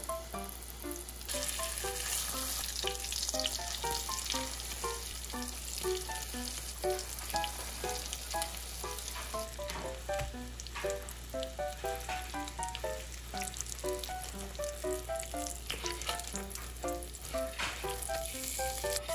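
Panko-coated pumpkin croquettes (korokke) shallow-frying in hot oil in a pan: a steady sizzle with fine crackles, strengthening about a second in. A light melody of short notes plays over it.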